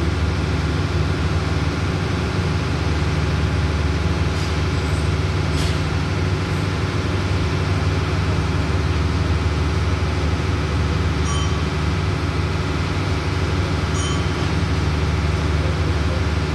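Steady low drone of a standing diesel passenger train's engine running at idle, with a few faint brief ticks.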